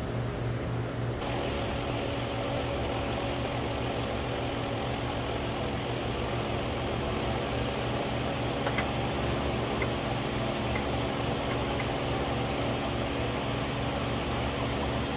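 Steady low machine hum with a hiss, which turns brighter about a second in. A few faint ticks come around the middle.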